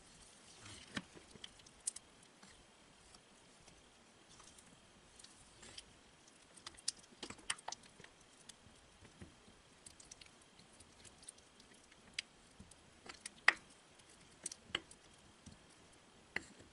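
Plastic spatula stirring a thick cocoa-and-starch paste in a small glass bowl: faint, irregular clicks and scrapes of the spatula against the glass, with one louder tap late on.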